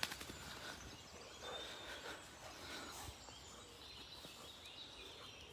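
Quiet woodland ambience: faint birdsong with a few thin high calls, and scattered soft ticks.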